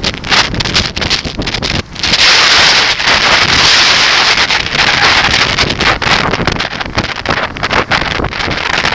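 Wind rushing over the microphone of a camera on a moving bicycle, a loud steady roar that swells for a few seconds from about two seconds in.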